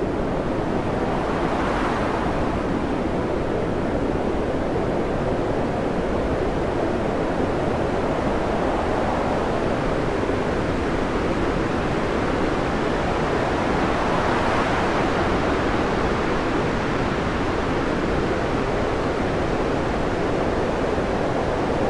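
Storm wind and heavy seas breaking over a ship's bow, heard from inside the bridge as a steady rushing noise that swells about two seconds in and again around the middle.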